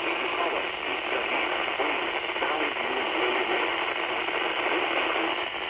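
Weather radio receiver hissing with static from a weak signal, a broadcast voice faintly heard beneath the hiss.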